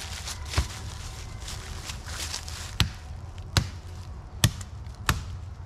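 Chopping blows of a blade into the wood of a small tree trunk as it is cut through by hand: five sharp, separate strikes at uneven spacing.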